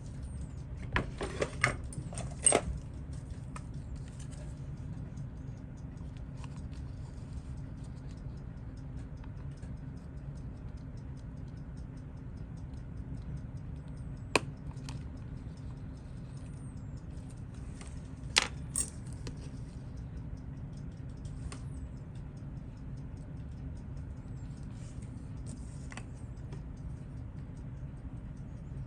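Small metal watchmaking tools clicking and tapping against parts of a watch movement being taken apart. There is a quick run of sharp clicks about a second in, a single click about halfway, and a pair around two-thirds of the way, over a steady low hum.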